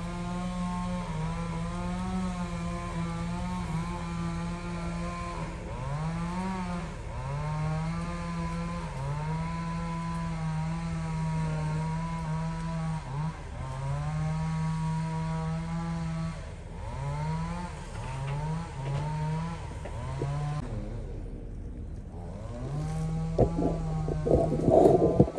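A small engine running in the background, revving up and holding in repeated bursts, with several quick revs in a row later on. A loud clatter of knocks comes near the end.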